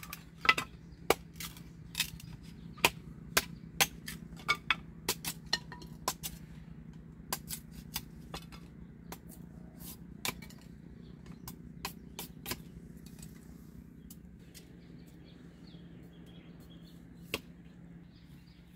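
A blade chopping wood against a log: sharp strokes about two a second, thinning out to a few scattered knocks after about twelve seconds.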